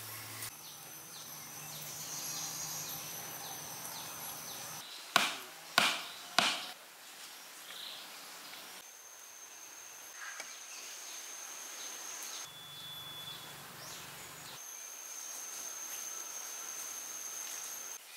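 Three sharp strikes about half a second apart, each ringing briefly, against outdoor background noise that changes abruptly several times. A steady high-pitched tone is heard in parts.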